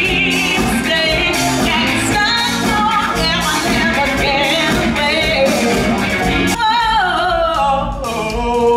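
A woman belting a showtune with a rock-pop band behind her, a live musical-theatre number. She sings with vibrato, and after about six and a half seconds she runs through a long string of sliding notes.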